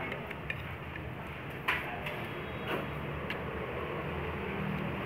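Metal spoon and chopsticks clinking against a plate and soup bowl while eating: a few sharp clinks, the loudest a little under two seconds in, over a steady low background hum.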